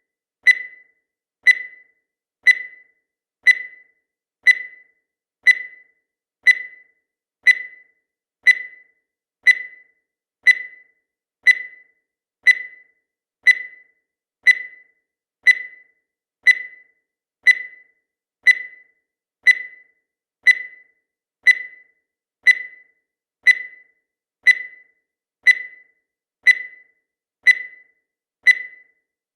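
Countdown timer sound effect: a short electronic beep once a second, each a high tone that fades quickly.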